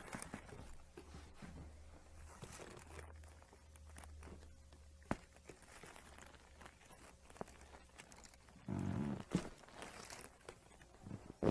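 Quiet rustling and handling with scattered small clicks during a chiropractic treatment, one sharp click about five seconds in, and a short voiced sound about nine seconds in.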